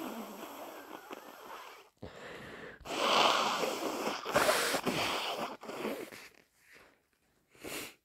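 Wet, congested nose blowing from a person with a head cold: a run of long, snotty blows of about a second each, then a short one near the end.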